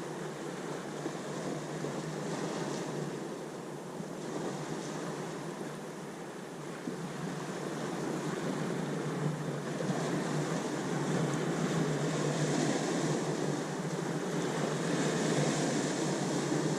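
Ocean waves washing onto the shore: a steady rush of surf that swells louder in the second half.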